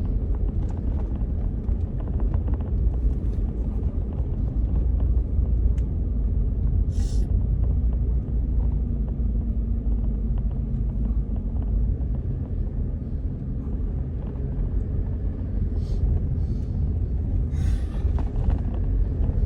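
Steady low road and engine rumble inside a moving pickup truck's cabin, with a few brief faint hisses.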